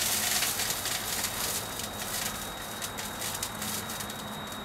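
Boiling Galden and leftover water in a vapor phase soldering tank sizzling and crackling with many small irregular pops, fading over the seconds. The popping is taken for vapour bubbles collapsing as they hit the colder water.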